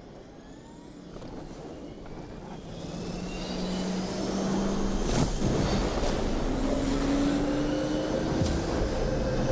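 Film soundtrack of a fighter jet on an aircraft-carrier deck, heard through a hall's loudspeakers. The jet engine spools up: a whine rises in pitch and the roar grows louder over the first few seconds. A sharp bang comes about five seconds in.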